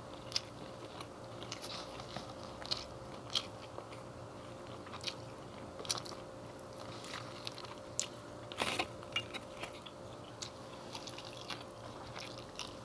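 Two people eating KFC fried chicken and a spicy chicken sandwich: scattered soft crunches of the fried breading and chewing mouth sounds, over a faint steady hum.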